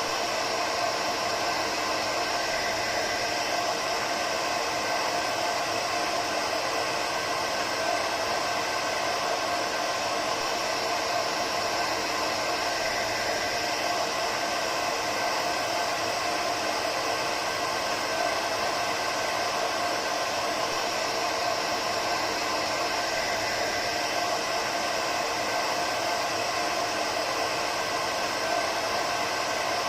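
Hair dryer running steadily, an even rush of blowing air with a faint motor hum and no change in speed.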